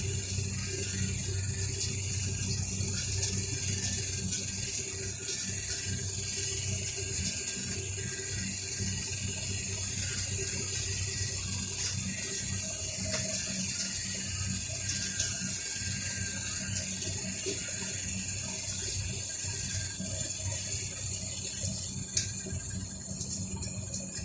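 Down-jacket recycling machine running: a steady rushing of suction air over a low motor hum, with faint irregular clicks.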